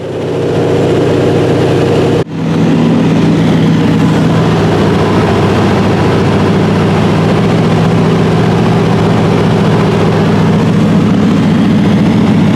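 Single-engine float plane's engine and propeller droning steadily, heard inside the cabin. The drone fades up at the start and cuts out for an instant about two seconds in.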